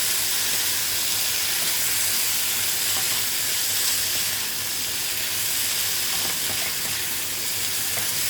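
Karela (bitter gourd) pieces frying in oil in a pan, a steady sizzling hiss now that the cooking water has evaporated off.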